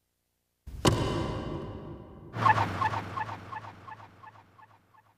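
Anime sound effects of a Honda Civic EG6 ramming the rear of an AE86 Trueno: a sudden hard bang about a second in, ringing off. Then a run of echoing pulses, about five a second over a low hum, fading out.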